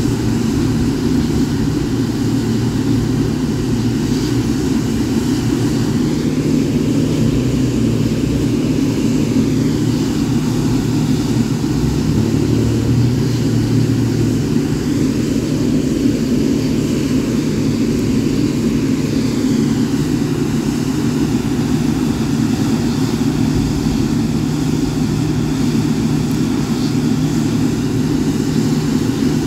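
Boeing 777-9's GE9X turbofan engines idling steadily, a constant loud jet rumble with a few low steady tones.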